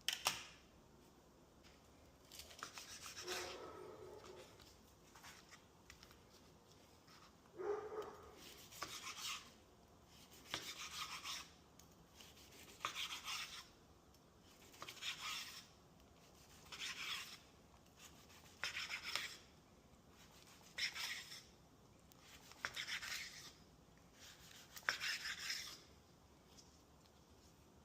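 Repeated short rasping, rubbing strokes in the kitchen, about one every two seconds, each lasting about a second.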